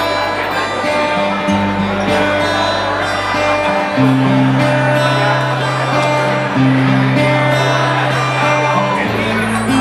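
Music with guitar over a sustained bass line that changes note every two to three seconds.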